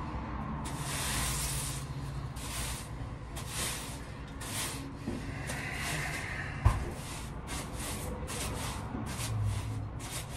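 Broom sweeping a floor: a series of irregular brushing strokes, roughly one or two a second. A single sharp knock about two-thirds of the way through is the loudest sound.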